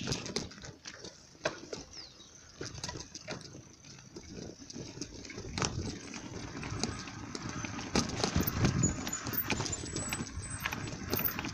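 A bicycle rattling over a cobblestone street: tyres rumbling with a run of irregular clicks and knocks, getting louder and busier about halfway through.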